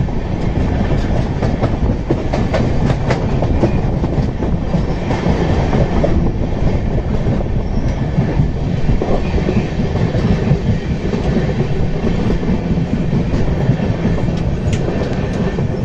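Passenger coach of the 12993 Gandhidham–Puri Superfast Express running at speed, its wheels rumbling steadily on the rails.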